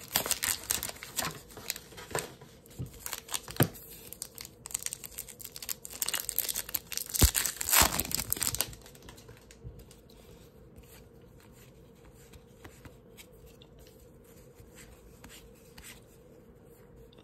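Cardboard-and-plastic blister packaging torn open, then the plastic wrapper of a 2021 Topps Update baseball card pack crinkling and ripping, loudest about seven seconds in. After about nine seconds only faint clicks of cards being handled remain.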